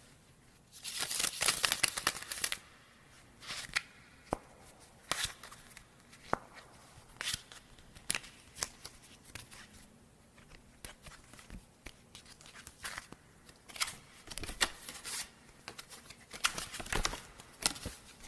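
Playing cards being handled: a dense rustling flurry of cards about a second in, then irregular sharp snaps and flicks of cards with short rustles between.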